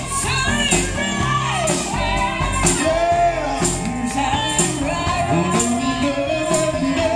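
Live band playing a song: electric guitar, bass, keyboard and drum kit keep a steady beat while a man and women sing together into microphones.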